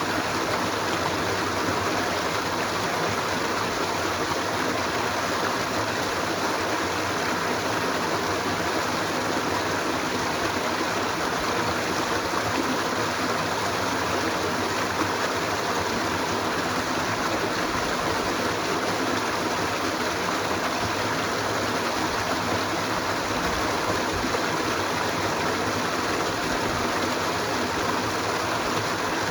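Water of a stream flowing steadily, an even rushing sound with no breaks or changes.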